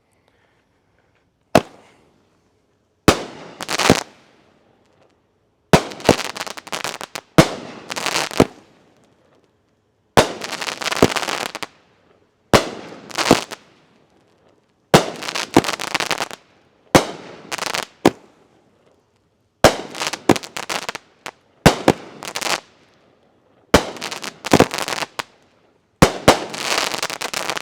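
A 350-gram Liberty firework cake by Dominator Fireworks firing shot after shot: sharp bangs, often in pairs, every second or two, each trailing off in a dense noisy smear.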